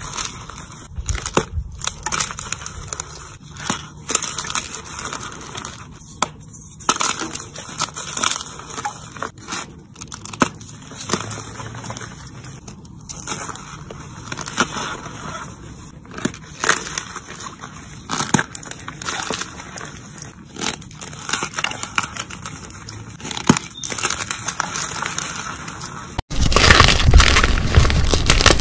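Gym chalk blocks overloaded with cornstarch being squeezed and crumbled by hand, with irregular crunchy crackles and soft powdery squeaks. About 26 seconds in it switches abruptly to a louder, denser run of crumbling.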